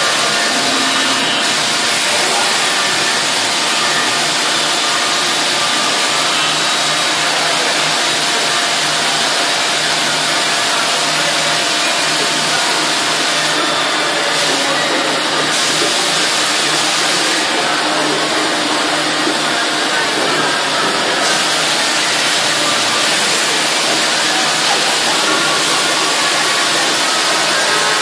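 1995 Thermwood C67 five-axis CNC router running: a steady loud rushing hiss with a low hum underneath as the machine head travels.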